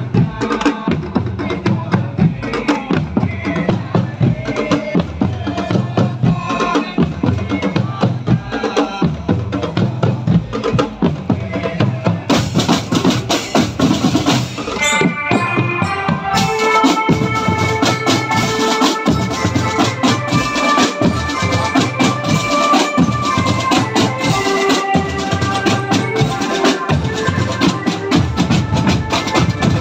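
Marching drum band playing: snare, tenor and bass drums beating a dense, steady rhythm. About halfway through, a melody with held notes joins over the drumming.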